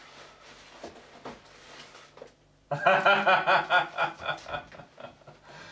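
Soft rustling as the nylon sleeping bag is handled. About three seconds in, a man breaks into a loud, gleeful laugh in quick pulses that lasts about a second and a half, then trails off.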